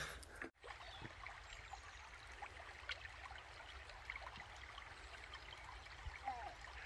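Faint running water, a steady trickle with a few soft ticks.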